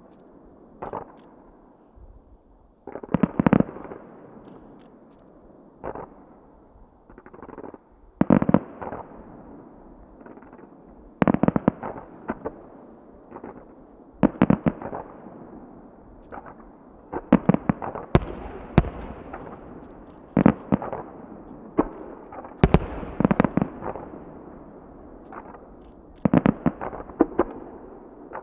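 Aerial firework shells bursting in a display: sharp bangs every few seconds, several coming in quick clusters of two to four, each followed by a fading echo.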